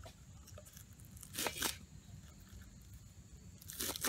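Kitchen knife slicing through green onions onto a wooden cutting board: crisp cutting strokes, a quick pair about a second and a half in and another few near the end.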